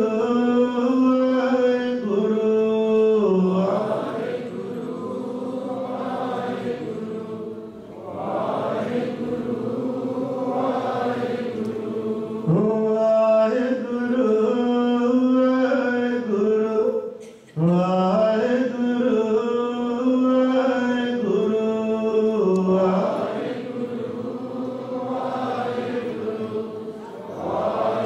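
Sikh congregation chanting naam simran together in a slow melodic chant, one phrase repeated about every five seconds.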